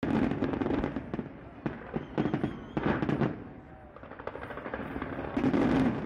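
Fireworks crackling: many sharp cracks in rapid, dense clusters, with louder flurries near the start, around the middle and near the end.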